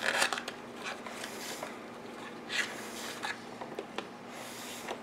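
Faint handling noises of board-game components: a few light clicks and short rustles of cardboard and plastic being picked up and moved, with one slightly louder rustle near the middle.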